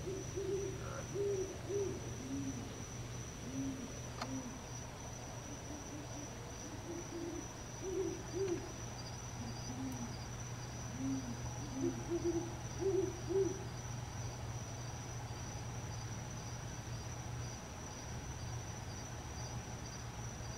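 An owl hooting in three bouts of several short hoots each, the notes stepping between a higher and a lower pitch, over a steady high-pitched insect trill.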